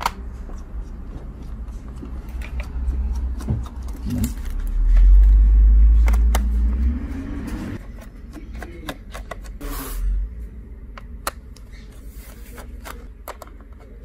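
Small Phillips screwdriver backing screws out of a Dell Inspiron 15 5000's plastic bottom case: scattered sharp clicks and scrapes, thickest in the second half. A low rumble of handling swells through the first half, loudest about five to seven seconds in.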